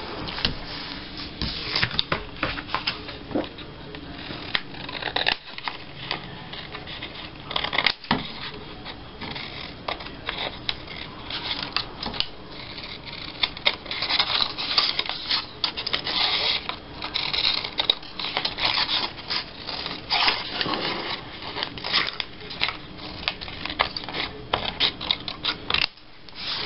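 Paper handling: patterned scrapbook paper strips rustling and crackling as they are pressed down and moved about, with scissors snipping through the paper. The sound is a steady run of short crisp crackles and clicks, busier in the second half.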